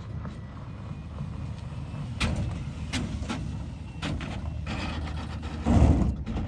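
Wind rumbling across the microphone, with several sharp knocks and a loud, heavy gust blast shortly before the end.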